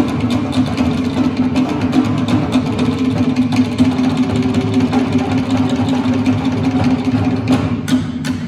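Live Tahitian percussion ensemble playing a fast, driving drum rhythm: rapid strikes on wooden slit drums (to'ere) over a bass drum.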